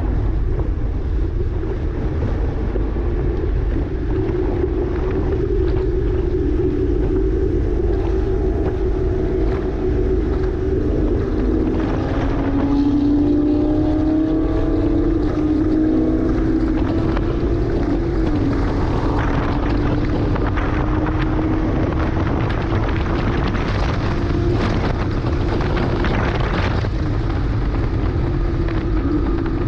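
A 2009 Porsche Cayman S's 3.4-litre flat-six under hard track driving, its note rising and falling with the revs as it accelerates and slows through corners, with wind buffeting the onboard microphone.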